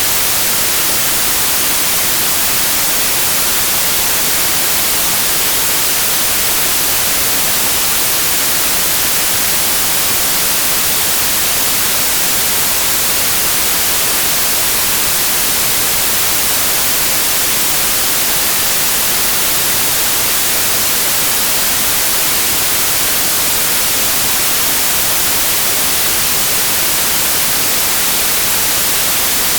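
Synthetic white noise used as a tinnitus masker: a loud, steady, unbroken hiss, brightest in the high end, that never changes.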